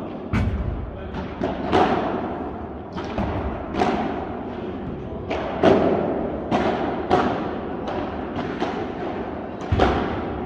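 Padel ball being struck by rackets and bouncing on the court and glass walls during a rally: about a dozen sharp pops at uneven intervals, each ringing out in the hall.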